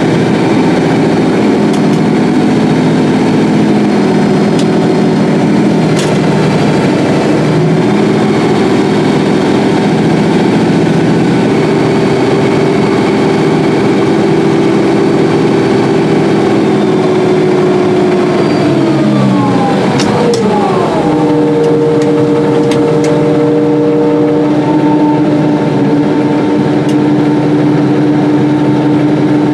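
Combine harvester running steadily at work, a loud mechanical hum of several steady tones. About two-thirds of the way through, the tones slide down in pitch, then settle into a new, lower steady hum.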